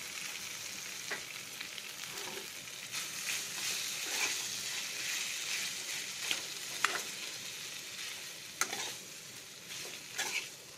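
Mashed boiled potato and green chillies sizzling in hot coconut oil in a metal kadai, stirred with a steel spoon. The spoon scrapes and clinks against the pan every second or two over a steady frying hiss.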